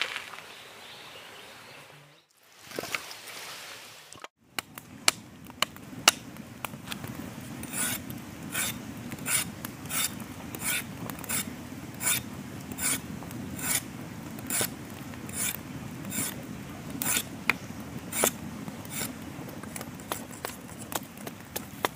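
A knife scraping and shaving a thin green bamboo stick in regular rasping strokes, about one stroke every 0.8 s, from about eight seconds in to near the end. Small sharp crackles from a wood fire run underneath.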